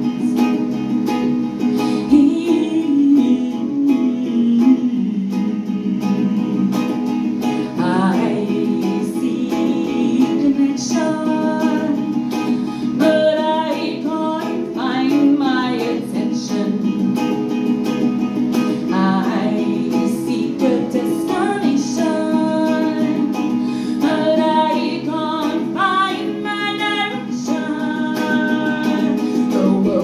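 A woman singing while strumming a ukulele. Her voice comes in phrases over steady strumming.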